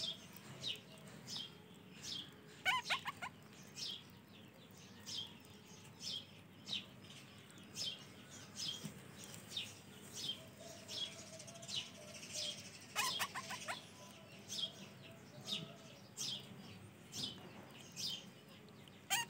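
Baby ring-necked parakeet chicks giving short begging calls that fall in pitch, repeated about one and a half times a second while they are hand-fed. Brief bursts of rapid chattering come about three seconds in, about thirteen seconds in and at the very end.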